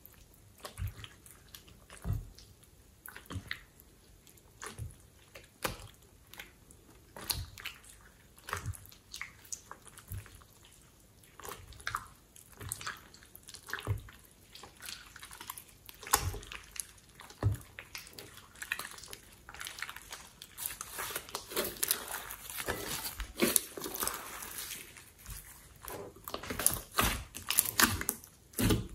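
Hands kneading and squeezing thick, wet slime in a glass bowl, making irregular sticky clicks and squelches that come thicker and louder from about two-thirds of the way through.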